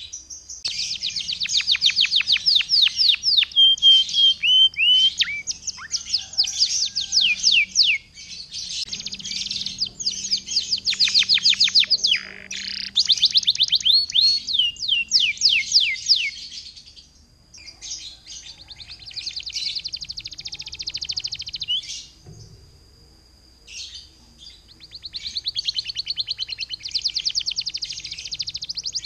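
Domestic canary in full song: long, fast trills of rapidly repeated falling notes, in phrases broken by short pauses, with a quieter lull a little after twenty seconds in.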